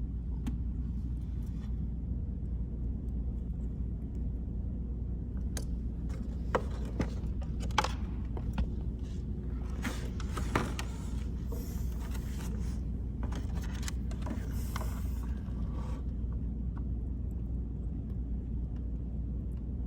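Scattered small clicks, taps and rustling scrapes from Posi-Tap wire connectors and wires being handled and fitted together, over a steady low hum.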